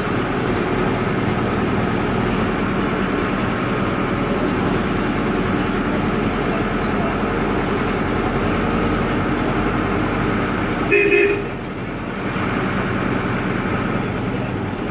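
Air-cooled Deutz F4L912 four-cylinder diesel of an Otokar M-2000 minibus running loud and steady under way, heard from the cab. About eleven seconds in, a short horn toot sounds and the engine note drops away just after it.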